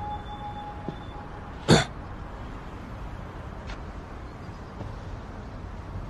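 A person clearing their throat once, short and sharp, about two seconds in.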